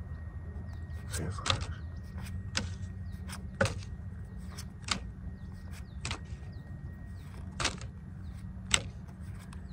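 Pokémon trading cards flicked one by one off the front of a stack, a short sharp snap about every second, over a steady low hum.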